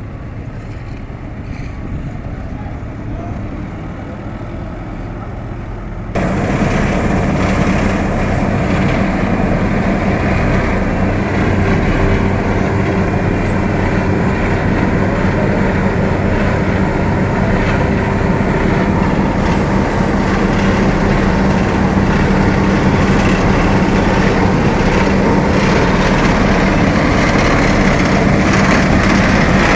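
Asphalt paver at work: its engine runs steadily with a low hum under a noisy mechanical churn. About six seconds in the sound steps up suddenly louder and brighter, then holds steady.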